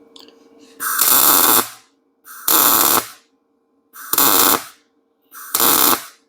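MIG welder arc crackling in four short bursts of just under a second each, with brief pauses between, as a weld blob is built up on the end of a broken exhaust stud.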